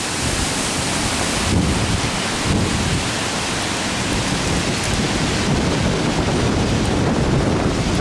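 Strong wind rushing through thrashing trees, steady and loud, with gusts buffeting the microphone in a low, fluttering rumble.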